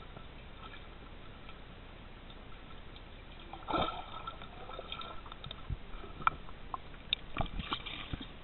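Swimming-pool water heard with the microphone underwater: a faint steady hiss, then a short splash and bubbling about four seconds in as arms stroke past the camera, followed by scattered small knocks and bubble pops.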